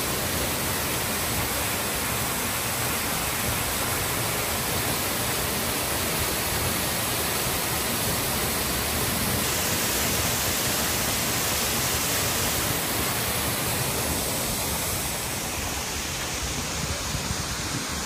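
Waterfall heard close up: a steady, dense rush of falling water that eases a little near the end.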